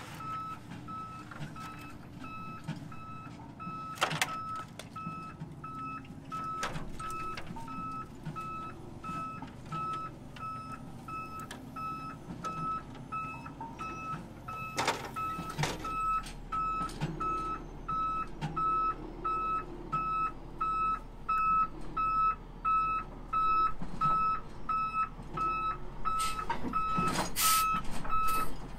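Backup alarm of a reversing crane truck beeping steadily at about three beeps every two seconds, over the low rumble of the truck's engine; the beeping stops near the end. A few short hisses break in along the way.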